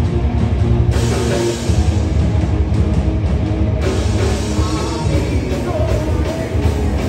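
A live rock band playing loud, with electric guitars, bass and drums.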